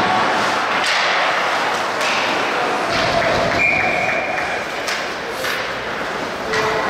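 Ice hockey play in a rink: scattered thuds and knocks of puck, sticks and boards over steady arena noise, with a brief higher ringing tone about halfway through.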